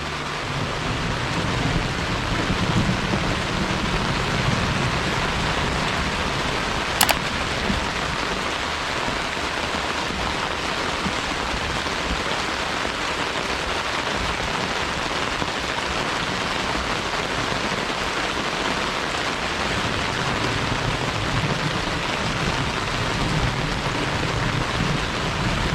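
Steady rain falling, a continuous even hiss, with one sharp click about seven seconds in.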